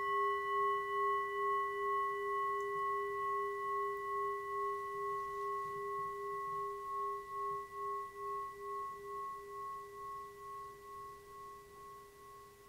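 A singing bowl, struck once just before, rings out with a few steady tones whose loudness wavers slowly as it fades away over about twelve seconds.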